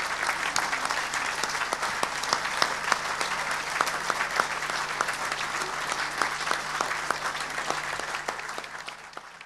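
Audience applauding: dense, steady clapping from many hands that dies away near the end.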